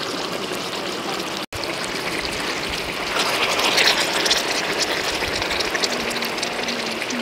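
Broth boiling hard in a large wok, bubbling and hissing, with splashing and dripping as whole boiled chickens are lifted out with metal tongs; it grows louder for a moment around three to four seconds in. The sound drops out for an instant about one and a half seconds in.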